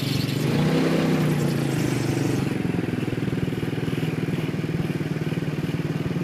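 Small engines of street go-karts running as they drive. The engine note rises and gets louder for about two seconds near the start, then settles into a steady run.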